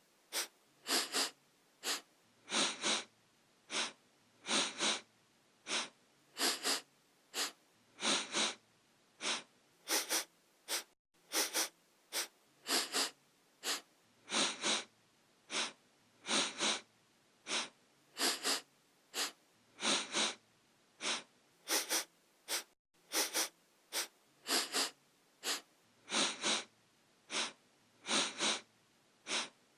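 A person sniffing through the nose over and over: short, sharp sniffs, often two or three in quick succession, with brief pauses between.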